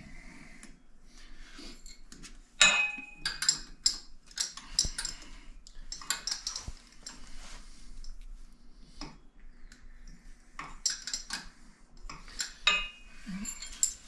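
Metal hand tools and hardware clinking and clattering: a socket wrench and a bolt being handled against the steel winch and bumper. The clinks come in irregular bunches, some with a brief metallic ring.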